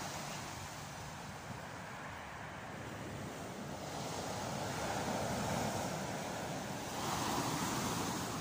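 Sea surf breaking on the beach: waves rolling in and crashing, swelling about halfway through and again, loudest, near the end.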